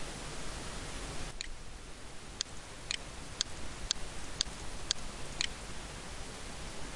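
Computer mouse clicking, about eight sharp clicks roughly two a second, over a steady microphone hiss that drops away while the clicks sound.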